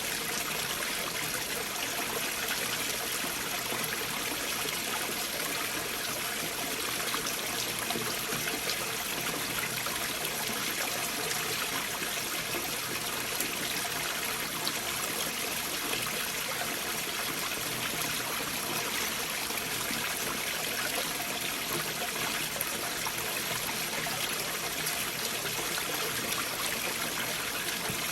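A stream flowing beneath large boulders: a steady, even rush of running water with no breaks or single splashes, its sound sitting mostly in the middle and upper range with little deep rumble.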